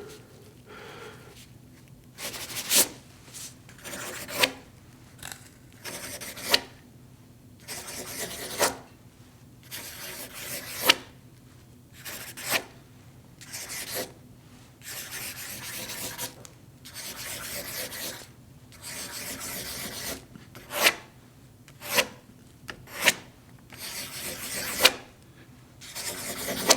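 Pen writing on paper: a series of short scratchy strokes with brief pauses between them, several marked by a sharp tick as the tip strikes or leaves the page.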